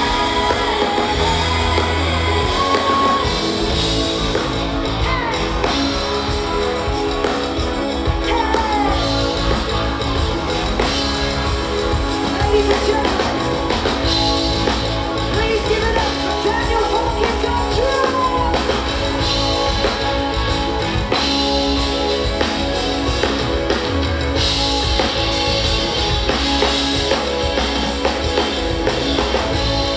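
Live rock band playing through an outdoor stage PA: a singer over drum kit and electric guitars, with a steady beat.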